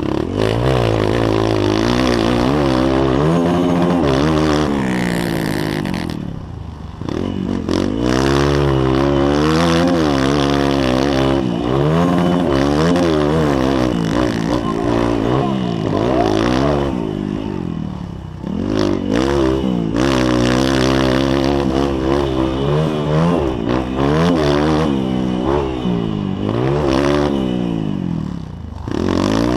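Motocross bike engine heard up close from the bike, revving up and down as the rider accelerates and shifts through the gears, with three brief drops in revs where the throttle is rolled off.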